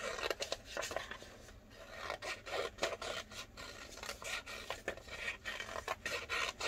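Scissors cutting through a folded sheet of paper in a run of irregular short snips, the blades rasping as they close through the double layer.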